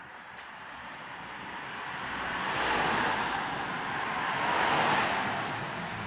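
A vehicle passing: a rushing noise that builds to a peak about three seconds in, dips, peaks again near five seconds and then eases.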